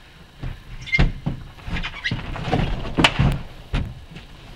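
A series of hollow knocks and thumps from a kayak hull as a man shifts his weight and climbs out of the cockpit, the loudest about three seconds in.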